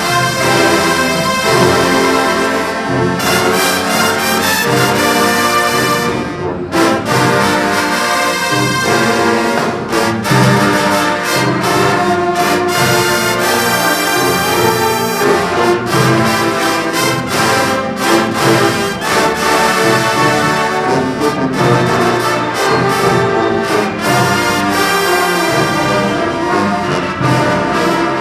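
Marching band brass section playing loudly, with trumpets and trombones sounding full sustained chords over a steady low pulse.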